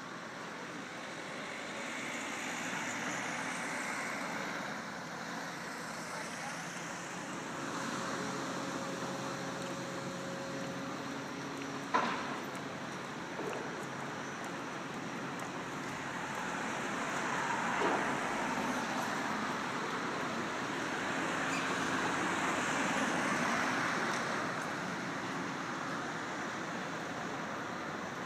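Outdoor traffic and site noise: a steady rush that swells and fades as vehicles pass, with one sharp knock about twelve seconds in.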